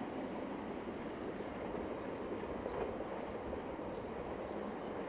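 Double-stack container freight train rolling by on the main line: a steady, even rumble of wheels and cars on the rails. A few faint, short high chirps sound over it from about halfway through.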